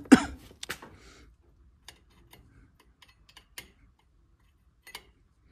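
Steel sheet-metal gauge clicking and tapping against the edge of a thin stainless-steel exhaust tube as its wall thickness is measured: a few sharp clicks at the start, then sparse, irregular faint ticks.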